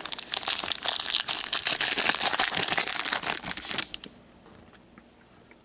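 A trading card pack wrapper is torn open and crinkled by hand, a dense run of crackling that stops about four seconds in.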